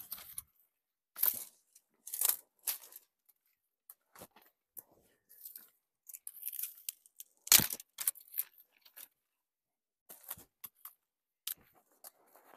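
Dry branches and brushwood rustling and crackling in irregular bursts as they are handled and pushed into place; the loudest crackle comes about seven and a half seconds in.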